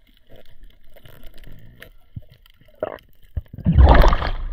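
Muffled underwater gurgling and faint ticks on a submerged camera, then, about three and a half seconds in, loud splashing and sloshing as the camera breaks the surface of the water.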